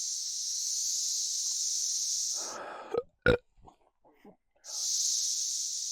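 Steady high-pitched drone of insects in summer woods. About two and a half seconds in it breaks off for a short rough burp and a sharp click, then comes back after a near-silent gap of about two seconds.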